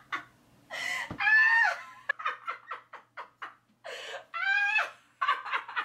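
A woman laughing: a high drawn-out laugh about a second in and again around four and a half seconds, each followed by a run of quick, short laugh pulses.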